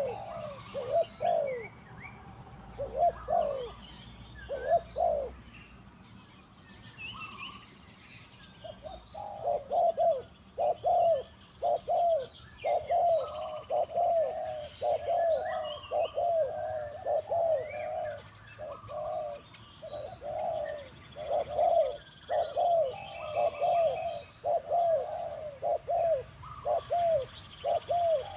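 Spotted dove (terkukur) cooing in chained runs of quick notes; after a few short bursts it breaks off for a few seconds, then calls almost without pause. Small birds chirp faintly in the background.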